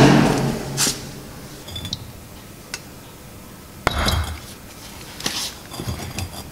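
Metal clinks and knocks as a hydraulic bottle jack and steel press parts are handled and fitted under an axle housing: a loud knock at the start, a sharper knock about four seconds in, and scattered lighter clinks between and after.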